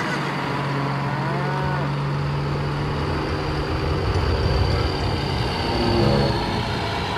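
A cow mooing: one long, low, steady moo in the first half, over a continuous rumbling noise.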